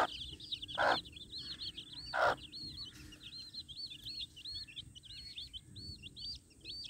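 Brood of young chicks peeping continuously in quick, high chirps as they forage with a hen, with two short, louder noisy bursts about one and two seconds in.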